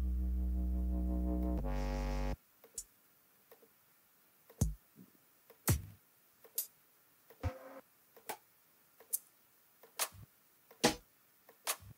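Drum-kit sample one-shots previewed one after another in a DAW browser. First a sustained synth-bass note that shifts pitch once and cuts off after about two seconds, then short single drum hits, kicks and snares among them, about one a second.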